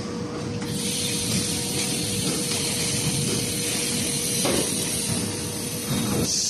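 CNC sheet-metal panel bending center and its gantry loading robot running: a steady machine hum under a high hiss that starts about a second in, with two knocks in the second half.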